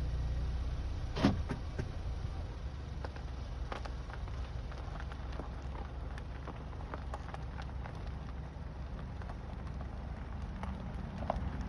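Geese grazing: scattered small clicks and tearing sounds of bills plucking grass, with one sharper knock about a second in, over a steady low rumble.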